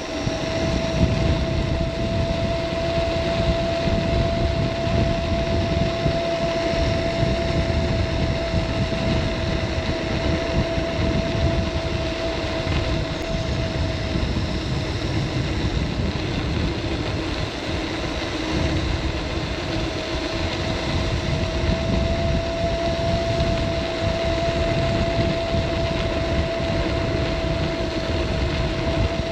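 Caroma P1 seated electric scooter being ridden: the 350 W motor gives a steady whine that fades out for a few seconds midway and then comes back, over heavy low wind and tyre rumble.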